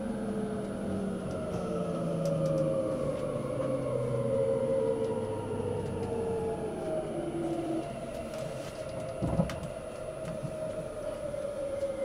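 683 series electric train's traction motors whining as it brakes to a stop, several tones falling slowly and steadily in pitch, heard from inside the carriage. A short knock comes about nine seconds in.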